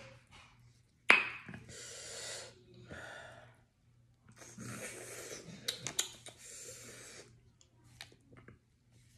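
Close-miked eating sounds from someone eating spicy boiled shellfish by hand: a sharp click about a second in, then several long breaths drawn and pushed through the mouth, mixed with wet sucking and smacking.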